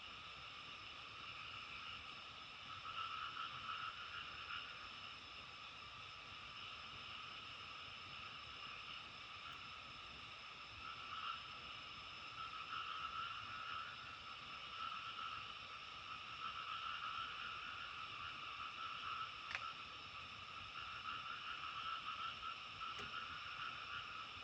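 A dense chorus of frogs calling continuously, swelling and fading in waves every few seconds, over a steady low background hiss. A single sharp click sounds about three quarters of the way through.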